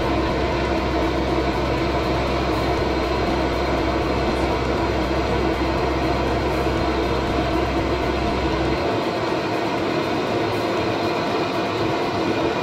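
Handheld gas blowtorch burning with a steady hiss while it heats seized bolts on the back of a motorcycle engine to free them. A low rumble beneath it drops away about nine seconds in.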